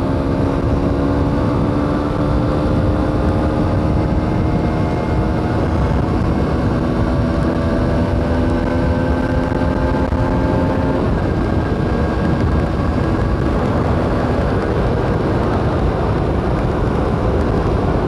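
2021 Aprilia SX125's single-cylinder four-stroke engine running under way, its note rising slowly as the bike gathers speed for about ten seconds, then easing off. Heard through a helmet microphone over heavy wind rumble.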